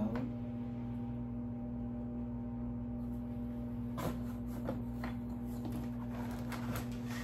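Cardboard and thin wooden kit pieces being handled in a box: scattered rustles and light clicks starting about four seconds in, over a steady low hum.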